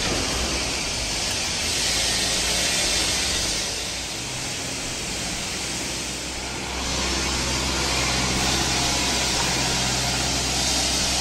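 Steady machine noise: an even hiss with a low hum beneath it, the hum growing stronger about four seconds in and again about seven seconds in.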